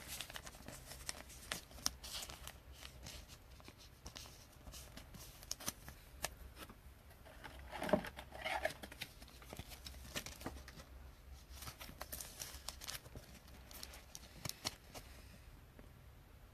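Faint rustling and small clicks of trading cards and plastic card sleeves being handled and sorted, with one brief low voice-like sound about eight seconds in.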